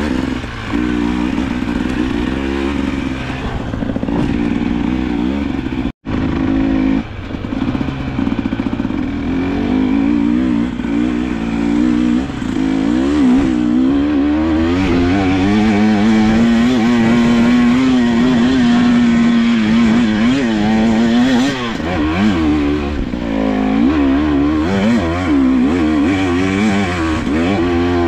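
KTM 300 EXC TPI two-stroke enduro motorcycle engine being ridden, its pitch rising and falling with the throttle, held high and steady for a few seconds past the middle. The sound cuts out for an instant about six seconds in.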